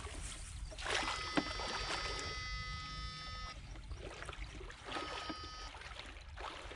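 Legs wading and sloshing through shallow water, with a few splashes. Twice a steady high electric whine from the backpack electrofishing unit switches on and off: for about two and a half seconds from a second in, and briefly near the end.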